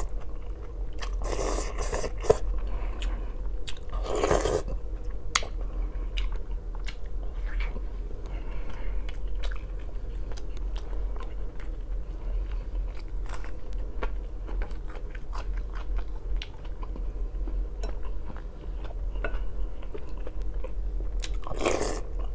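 Close-up mukbang eating sounds: thick borscht slurped off a wooden spoon a few times near the start and again near the end, with wet chewing and bites of sausage and clicky mouth noises in between.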